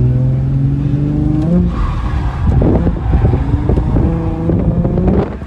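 Holden Commodore V6 engine revving hard under load, its pitch climbing steadily for about a second and a half, then dropping and stuttering unevenly before holding high revs and falling away near the end.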